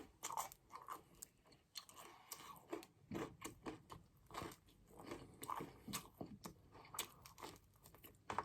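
Close-miked crunchy biting and chewing of garlic bread, with many small irregular crackles of the crust.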